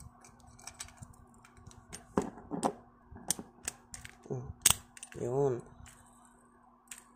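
Small clicks and taps as an Orb Egis Beyblade Burst top's plastic layer, metal disc and driver are fitted and twisted together. The clicks are scattered, with one sharp one about two-thirds through.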